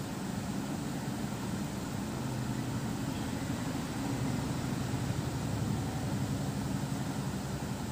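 A steady low mechanical drone with a background hiss, swelling slightly midway.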